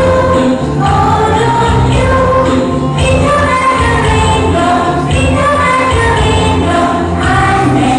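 A song plays: singing over an accompaniment with a steady bass beat.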